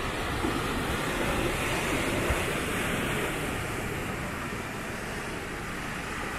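Sea surf breaking and foaming against a rocky shore, a steady rushing wash that eases slightly in the second half.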